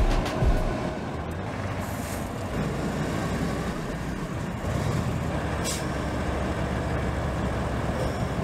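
Heavy diesel truck engines running with a steady low rumble as a mobile crane is moved onto a low-loader trailer, with a short air-brake hiss about six seconds in.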